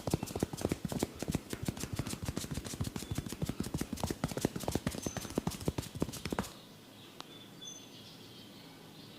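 Rapid, even percussive tapping of a head massage, about seven or eight taps a second, stopping abruptly about six and a half seconds in. A few faint bird chirps follow.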